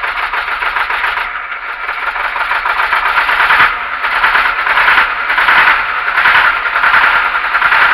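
Ural truck's YaMZ-238 V8 diesel running just after a cold start in frost, heard from inside the cab with the floor panels off. The engine has just been reassembled after a rear crankshaft oil seal replacement.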